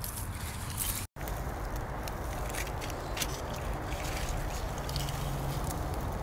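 Rustling and crackling of tomato-plant leaves and stems as hands pick yellow cherry tomatoes, over a steady low outdoor rumble. The sound cuts out for an instant about a second in.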